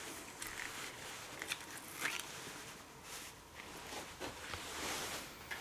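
Faint small clicks and scraping of a mini pick prying the rubber reservoir grommets out of an ATE master brake cylinder held in a vise, with a couple of sharper clicks about one and a half and two seconds in.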